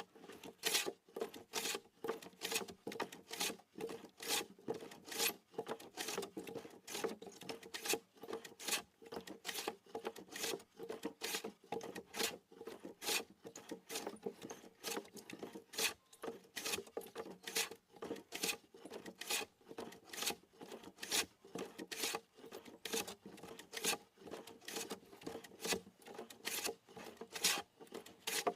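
Wood being smoothed by hand, a rasping tool drawn back and forth across the timber in even strokes at about two a second.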